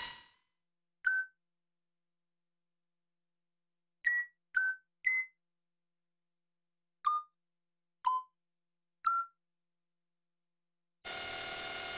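A synthesized plotter-motor hum stops at the start. Then come seven short electronic bleeps at different pitches over silence: one about a second in, three quickly around four to five seconds, then three a second apart. The synth motor hum starts again about a second before the end.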